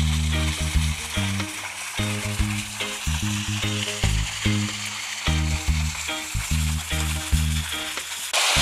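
Stream water rushing and splashing from a small cascade, a steady hiss that grows louder near the end, under a reggae music track whose bass line moves through low notes.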